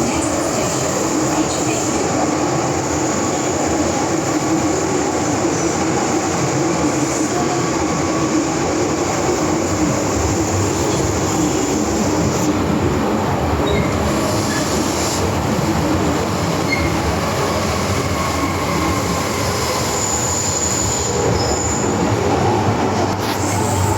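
MTR M-train electric multiple unit running, heard from inside the car: a steady rumble of wheels on rail with traction and running noise, holding at an even level.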